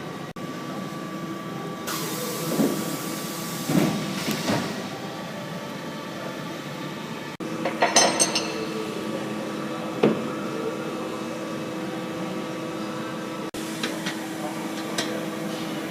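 Metal parts of a pipe welding machine being handled and clamped, giving scattered knocks and clinks, the loudest about eight seconds in, over a steady hum.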